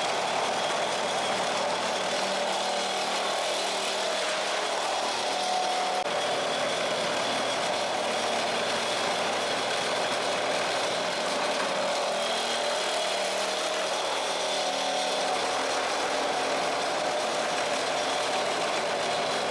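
Kyokuto SM-15 floor remover running steadily, an even mechanical din with a constant whine that does not let up.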